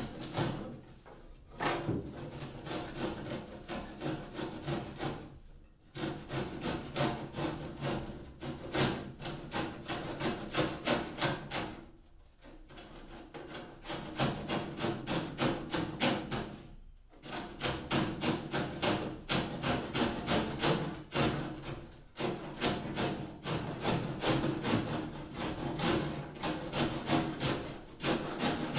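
Handsaw cutting plywood with quick, even back-and-forth strokes, the blade held flat to trim an edge flush. The sawing breaks off briefly about four times.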